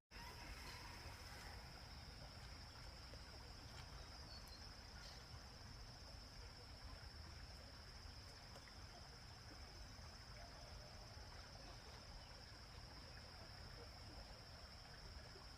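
Faint, steady high-pitched drone of insects, holding one unbroken pitch, over quiet background hiss.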